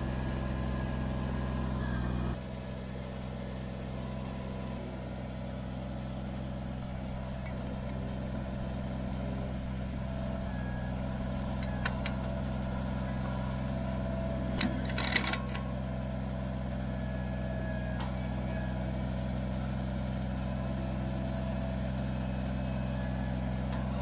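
Kubota BX23S compact tractor's three-cylinder diesel engine running steadily while it powers the backhoe digging with a trenching bucket, with a few short clatters partway through.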